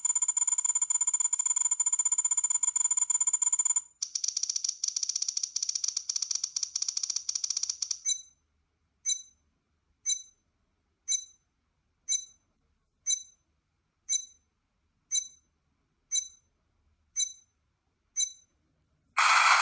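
Electronic sounds: a steady high tone for about four seconds, then a buzzing for about four seconds, then eleven short beeps about one a second, and a burst of static near the end.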